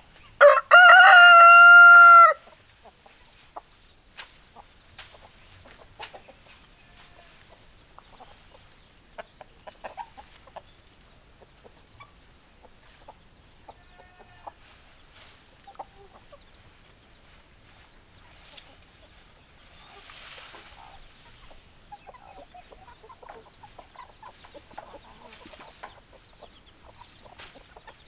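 A rooster crows once, loud, in the first two seconds, ending on a long held note. After it, hens cluck quietly on and off among scattered soft clicks.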